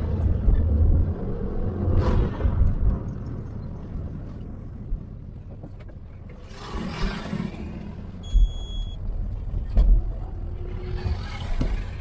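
Low rumble inside the cabin of a Hyundai Eon being driven, loudest in the first couple of seconds and then easing off. Two swells of passing-traffic noise come through, and there is a short high beep about eight seconds in.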